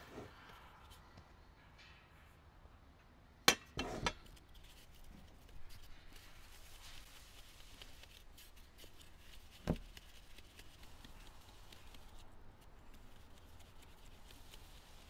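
Flour being sifted through a wooden-rimmed sieve into an enamel basin: a faint, fine rustle of flour falling through the mesh. A sharp knock comes about three and a half seconds in, with a few quicker knocks right after, and another sharp knock near ten seconds.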